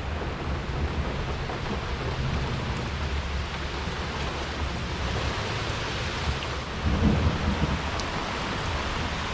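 Steady rain falling, with a low rumble of thunder underneath that swells about seven seconds in.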